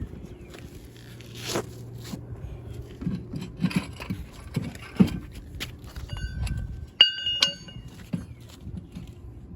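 Scattered scrapes and knocks of a floor jack and jack stands being moved into place under a car. Two sharp, ringing metal clinks come about six and seven seconds in.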